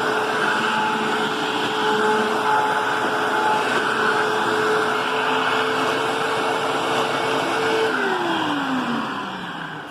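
Upright vacuum cleaner running steadily with a whining motor tone, then switched off about eight seconds in, its pitch falling as the motor spins down.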